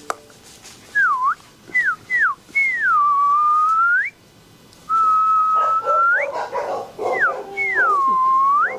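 A person whistling a string of swooping notes: a few short falling whistles, then long notes that dip down and rise again, and one held note that swings up at its end.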